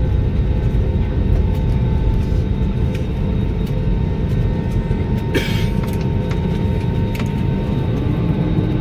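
Steady low rumble inside a jet airliner's cabin as it taxis after landing, with a brief hiss about five seconds in.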